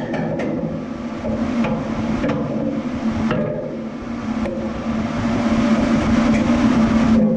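Background music with a steady drone, over a few irregular sharp knocks of a hand hammer on the boat's steel.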